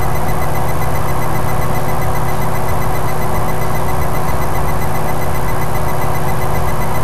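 A steady, unchanging hum with an even hiss over it.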